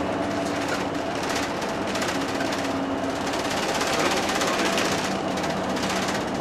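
Inside a bus cabin: the bus's engine and road noise running steadily as it drives along, with a low steady hum over a rushing noise.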